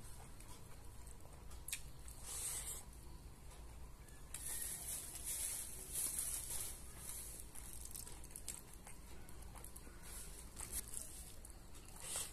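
Fingers mixing and squishing cooked rice on a steel plate, faint, with a few light clicks.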